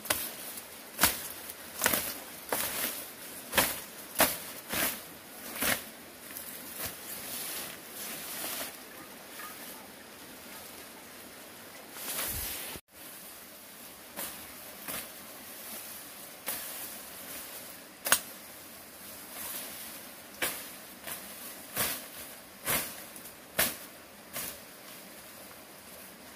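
A series of sharp knocks or taps, roughly one a second, some louder than others, with a brief break about halfway through.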